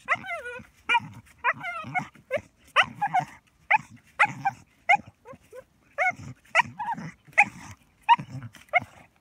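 Dog giving short excited yips and whines, about two a second, some falling in pitch, while it digs in sand, its paws scraping the sand between calls.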